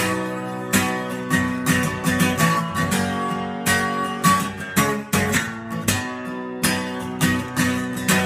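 Acoustic guitar strumming chords in an instrumental break between sung verses, in a steady rhythm of repeated strokes.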